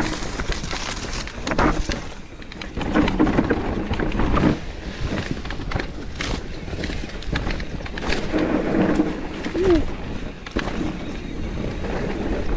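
Megatower enduro mountain bike riding down a dry, dusty trail: wind noise on the microphone and rumbling tyres, with the bike knocking and rattling over the ground several times.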